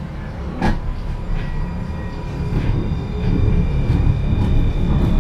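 Alstom RegioCitadis tram heard from inside the car while running along the track: a steady low rumble with a faint high whine, and one sharp knock about a second in. The running noise grows louder after about three seconds.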